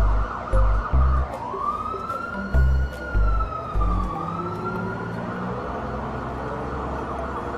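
Police siren wailing, its pitch sliding slowly up and down. A deep, regular music beat thumps under it in the first half, then stops.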